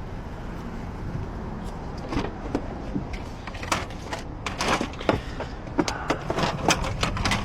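Irregular clicks, knocks and scrapes of a locksmith's tools being handled and worked against a locked car's door, thickest in the second half, over a steady low hum.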